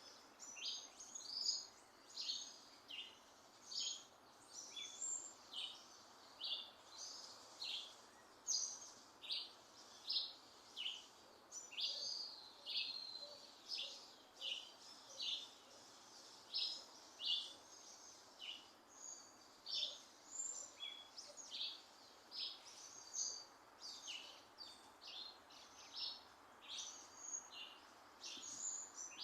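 Small birds chirping: a steady run of short, high notes at varying pitches, about two a second, over a faint steady hiss.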